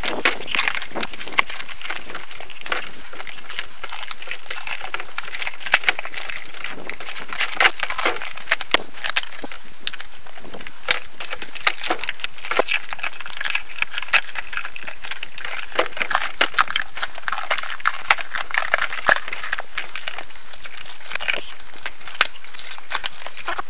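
Handling noise as a thin latex mould is worked around a bark-covered log: crinkling and rubbing of the rubbery sheet against the bark, with many short clicks and taps scattered throughout, over a steady background hiss.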